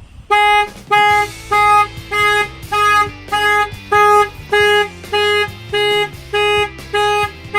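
Avital 3100 car alarm going off on a van: a steady-pitched honk repeating in even pulses, a little under two a second.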